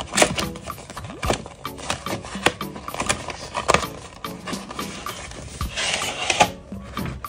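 Cardboard toy packaging being handled and opened: irregular taps, clicks and rubbing as the cardboard sleeve is worked off a plastic cup, with a longer sliding rustle of cardboard about six seconds in. Faint background music plays underneath.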